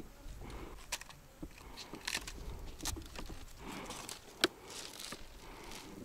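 Small clicks and soft rustling of fishing tackle being handled while bottom-fishing rigs are put together, with one sharper click a little past the middle.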